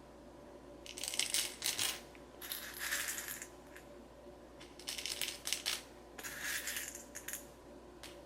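Corn kernels poured into a miniature feeding trough in about four short spills of a second or so each, small hard grains clattering as they land.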